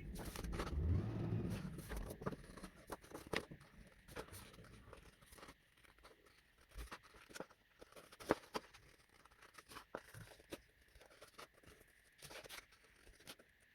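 Small craft scissors snipping around printed flowers in patterned paper: a run of short, irregular snips and paper rustles, with louder handling of the paper in the first couple of seconds.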